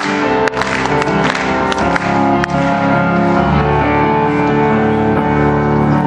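Solo piano playing: a few separately struck notes and chords in the first half, then deep sustained chords held from about halfway on.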